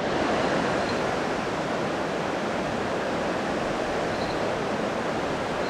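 Steady rushing of water pouring over a spillway, an even unbroken roar.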